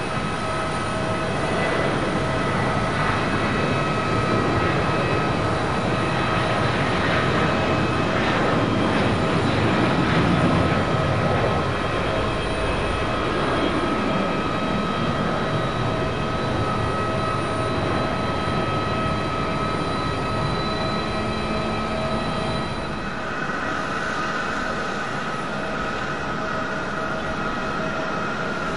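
Boeing 737-700's CFM56-7B turbofans at takeoff thrust: a steady jet roar with a whining fan tone, loudest about ten seconds in as the airliner climbs away. About 23 seconds in it gives way to a fainter, steadier jet hum.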